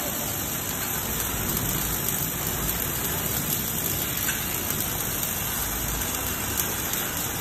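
Robotic arc welding: the welding robot's torch arc burns without a break, a steady crackling hiss with spatter.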